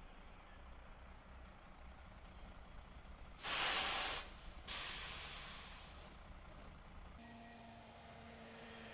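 Semi-truck air brakes hissing: a short loud burst of released air, then a second hiss that fades away over about a second.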